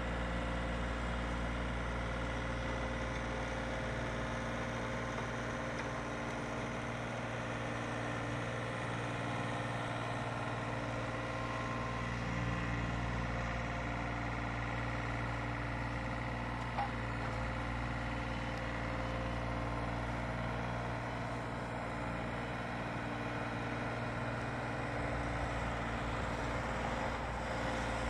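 John Deere 3720 compact tractor's diesel engine running steadily as it plows snow, an even drone with a single short click partway through.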